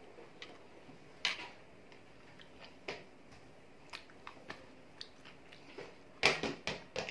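A person chewing a spoonful of ugadi pachadi: quiet, scattered mouth clicks and smacks, with a louder cluster of short sounds near the end.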